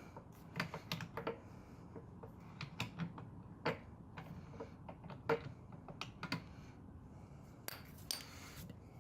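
Ratchet and socket clicking in short irregular bursts as the rear brake caliper bolts are undone, with a brief scraping rasp near the end.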